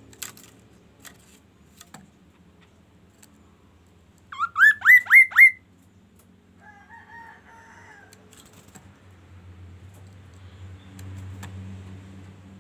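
A caged songbird calls a loud, quick series of five rising whistled notes about four seconds in. A fainter, drawn-out call follows a second later. A few light clicks come near the start.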